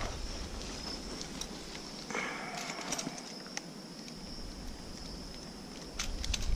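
Scattered small clicks and a short rustle from a fish being handled on a muddy bank with a lip-grip tool, over a steady high-pitched whine; louder low handling noise starts near the end.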